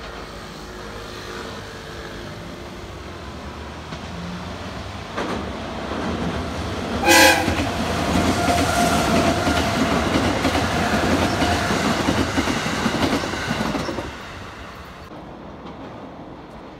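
JR electric train sounding a short horn blast about seven seconds in, then running past with wheel clatter, rumble and a steady motor whine, which drops away suddenly about fourteen seconds in.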